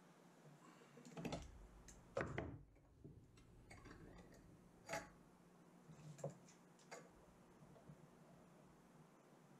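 Faint metal clicks and knocks of small eye bolts and sailboat mainsheet blocks being handled and clamped in a steel bench vise: several short separate clicks, the loudest about two seconds in.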